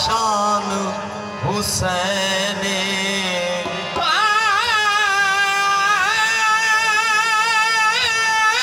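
A man singing a devotional kalam about Karbala, his voice rising about four seconds in into long, loud held notes with a wide vibrato. A low steady tone sounds beneath the first few seconds.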